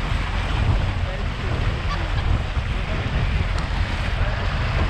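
Steady wind noise on the microphone over the rush of water around a moving small boat.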